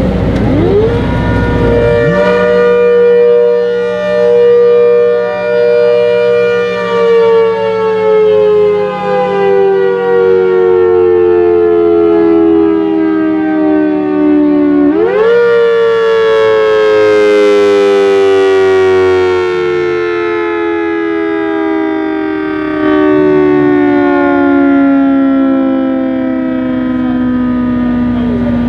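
ACA Hurricane MKII 130 siren head, driven by a 4M Thunderbolt blower, winds up to a loud two-note wail, holds, and slowly winds down. About halfway through it winds back up sharply and then sinks again, swelling and fading as the rotating horn sweeps past, over a steady low hum.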